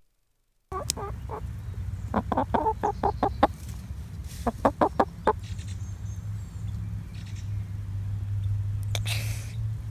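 Chickens clucking close by in short runs of quick calls, over a steady low hum, after a brief silence at the start.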